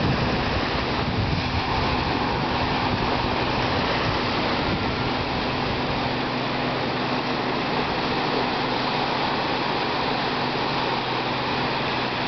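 Small waves breaking and washing onto a sandy beach: a steady, even rushing of surf.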